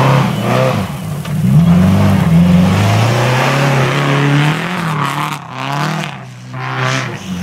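Subaru Impreza rally car's flat-four engine revving hard through a snowy corner, its pitch climbing and dropping several times as the driver shifts and lifts. The sound fades briefly near the end, then picks up again.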